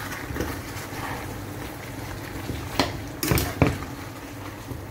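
Chicken adobo with vegetables simmering in a pot, a steady low bubbling, with three knocks of a utensil against the pot about three seconds in as the vegetables are mixed in.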